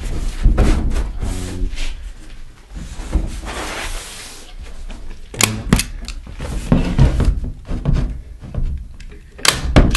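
A plywood sheet handled against a wood-stud wall frame: wooden knocks and a scraping slide about three seconds in, then sharp clicks and knocks as a metal clip is fixed to the sheet near the end.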